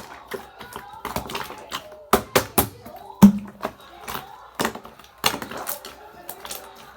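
Light-green marbled slime being squished and pressed by hand, making irregular wet clicks and pops, the loudest about three seconds in.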